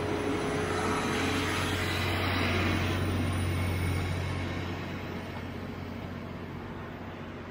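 John Deere 9230 four-wheel-drive tractor's diesel engine running steadily as the tractor drives over the silage pit, packing it. The sound is loudest as the tractor passes close in the first few seconds, then fades as it moves away.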